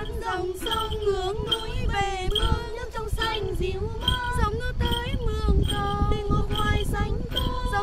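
A female voice singing a melody with held, bending notes over instrumental accompaniment with a regular beat.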